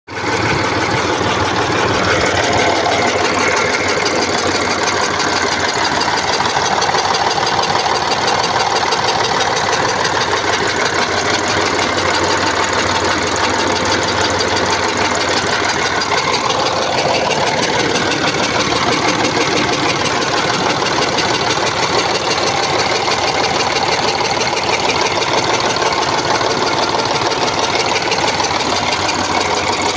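Engine idling with a steady knock, a new knock of unknown cause.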